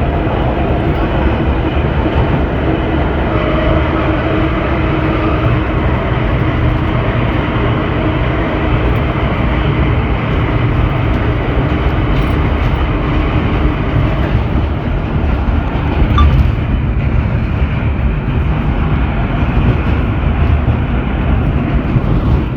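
Vintage 1917 IRT Low-Voltage subway car running along the track, heard from inside: a loud, steady rumble of wheels on rail. A faint whine in the first half fades out.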